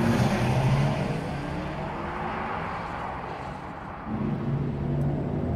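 Porsche Taycan Turbo S Cross Turismo electric car passing close by. Tyre and wind rush is loudest as it goes past, then eases off under a low steady hum from its drive, which grows stronger about four seconds in.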